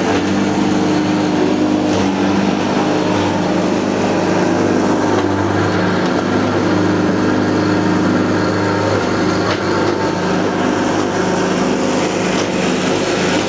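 Electric-motor-driven grinding mill running steadily while grinding organic waste into feed, with a steady hum under the rough grinding noise.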